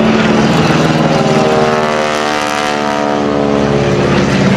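Piston engine and propeller of an aerobatic biplane flying overhead, a steady drone whose pitch falls about halfway through.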